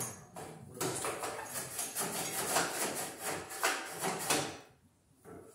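Clattering of metal parts being handled on a Wheel Horse garden tractor's dash and tank tray: a run of irregular knocks and scrapes that stops about four and a half seconds in.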